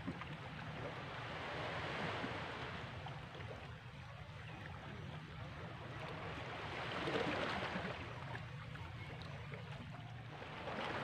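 Small sea waves washing in against shoreline boulders, swelling and falling back about every four to five seconds, over a steady low rumble.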